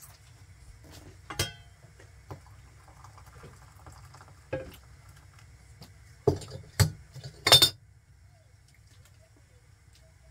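Enamel kettle and teapot being handled on a gas hob and a wooden counter: a few sharp clinks and knocks, with a louder cluster of clinks about six to eight seconds in, over a low steady hum.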